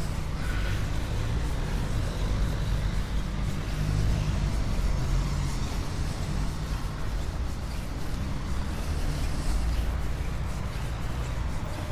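Road traffic: cars driving along the adjacent street, heard as a steady low rumble of engine and tyre noise.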